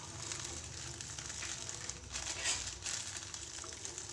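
Sugar pouring from a plastic bag into a pot of water, with a hissing trickle and the bag crinkling as it is squeezed and shaken, louder about two and a half seconds in.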